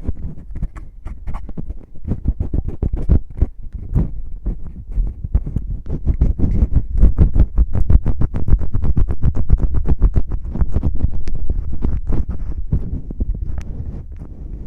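Fingers rubbing and scratching at the ear of a binaural ASMR microphone in quick, dense strokes, louder in the middle.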